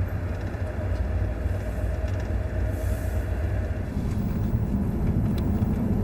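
Steady low rumble of a moving vehicle, thickening a little about two-thirds of the way through.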